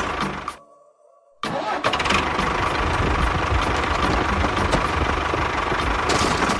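A small motor running steadily with a whine. It cuts out about half a second in and starts up again just under a second later.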